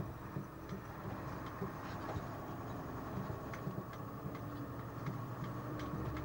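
Milk tanker lorry's diesel engine running at low speed, heard from inside the cab, with light irregular clicks and rattles.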